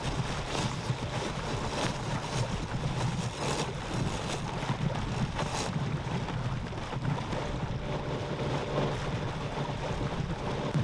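Sailboat mainsail flapping and snapping loose in the wind as it is hoisted, over the steady drone of the boat's engine running for motor-sailing. Wind buffets the microphone.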